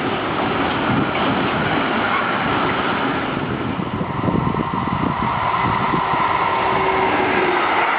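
A passing train making a loud, steady rushing rolling noise, with a faint steady tone rising out of it in the second half.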